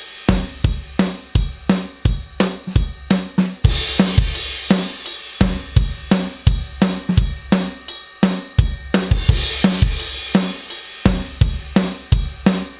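Recorded drum kit groove playing back, with kick, snare, hi-hats and cymbal crashes in a steady beat, repeating as a loop every four to five seconds. The groove runs through a compressor plugin set to about 3 to 4 dB of gain reduction.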